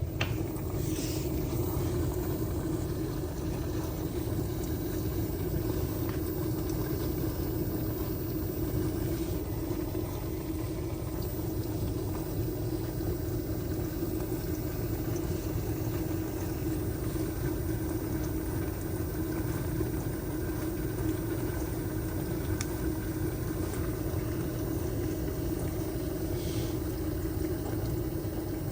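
LG dishwasher running on its heavy cycle: the steady hum of the wash pump motor over a low rumble of circulating water, coming up to full level right at the start and then holding even.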